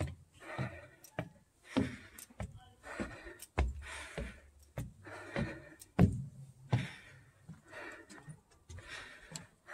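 Footsteps at a steady walking pace, a bit under two steps a second, each a dull knock followed by a short scuff.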